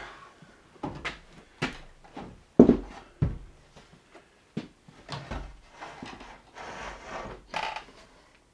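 Irregular knocks, bumps and scrapes of wooden parts being handled and shifted, with two heavy thumps about three seconds in the loudest.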